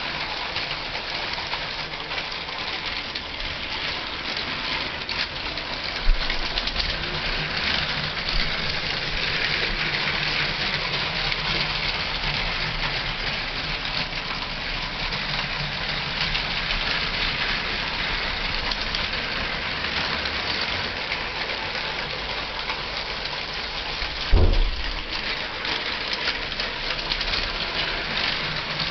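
Two Lego trains running on plastic Lego track: a steady whirring clatter of small electric train motors and wheels rolling over the track. A single low thump about 24 seconds in.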